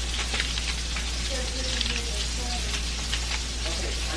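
Beef patties cooking on the stove: a steady sizzle with dense little crackles.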